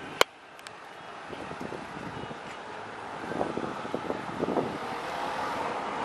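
Outdoor street ambience: a steady rush of wind on the microphone and vehicle traffic, with one sharp click just after the start.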